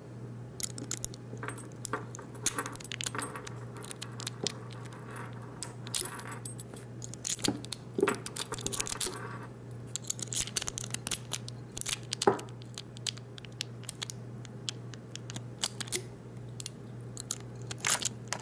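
Lock pick working the pins inside a Master Lock No. 570 padlock: many small, irregular metallic clicks, rattles and scrapes, over a steady low hum.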